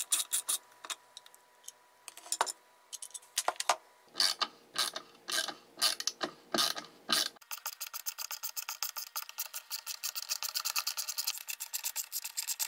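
Ratcheting screwdriver clicking as screws are turned on a Porter-Cable portable band saw. There are a few scattered clicks, then heavier strokes, then after an abrupt change about halfway a fast, even run of clicks.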